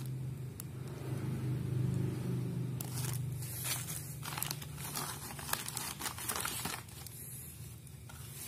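Thin plastic packaging bags crinkling and rustling in handling, in bursts of sharp crinkles from a few seconds in, over a steady low hum.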